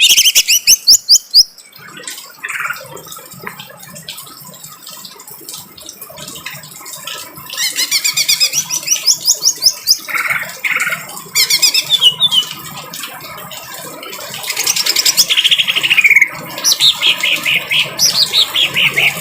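Greater green leafbird (cucak ijo) singing its harsh 'kasar' song: several bursts of rapid, fast-repeated high chirping notes with short quieter pauses between them.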